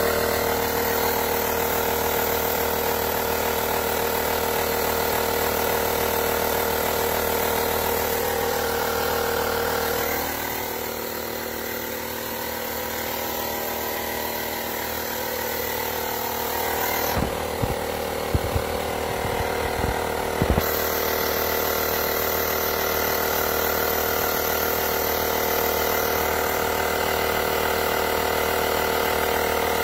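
Avid Power portable tire inflator's electric compressor switched on and running steadily under load, pumping air into a tire while the pressure climbs slowly. A few sharp knocks come about two-thirds of the way through.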